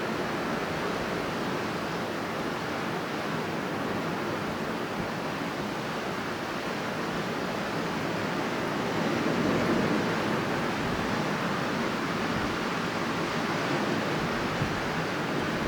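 Strong wind blowing steadily, a continuous rushing noise that swells briefly about nine seconds in.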